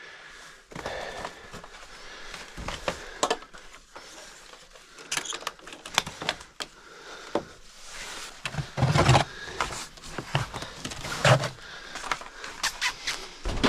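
Irregular handling noises: scattered knocks, clicks and rustling, with two heavier thumps about nine and eleven seconds in.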